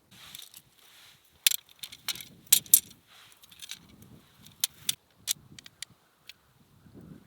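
Irregular sharp clicks and light clatter of small hard objects being handled, loudest in a quick cluster in the middle, with soft rustling between.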